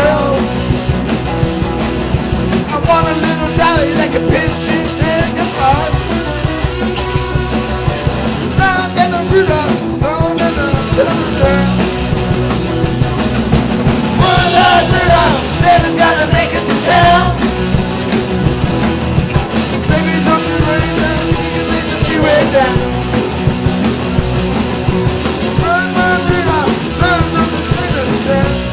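Rock band playing a punk-flavoured rock song with a singer over guitars and drums.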